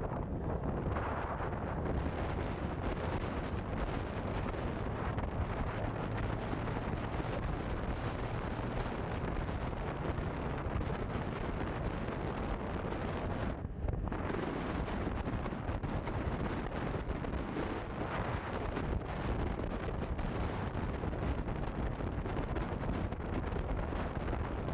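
Wind buffeting the microphone of a moving motorcycle, over the steady running of a Honda CB150F's single-cylinder engine. The wind noise eases briefly about halfway through.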